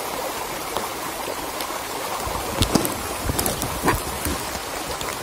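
A small stream runs steadily with rain falling. There are a few dull knocks in the middle.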